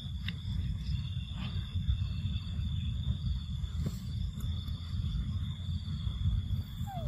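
A constant high-pitched insect drone over a steady low rumble, with a few faint ticks and a short falling squeak near the end.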